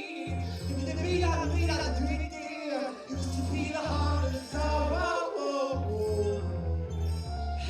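A song with a sung vocal over deep, sustained bass notes.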